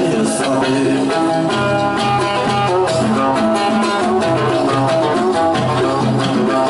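Yemeni Tihami song: an instrumental passage led by plucked strings, with quick changing notes over a steady beat.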